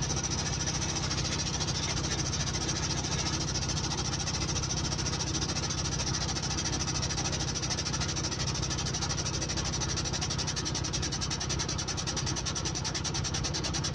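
Air-hydraulic truck jack running on compressed air, its pump pulsing rapidly and evenly with a steady hiss as the ram lifts a loaded dump truck axle.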